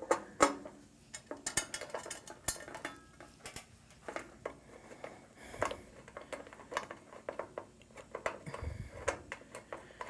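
A screwdriver working the screws of an electric water heater's metal access cover: a long run of small, irregular metallic clicks and clinks as the screws are backed out.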